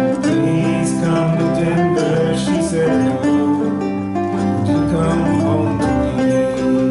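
Ukulele band playing live: several ukuleles strummed and picked together, with a woman singing held notes over them.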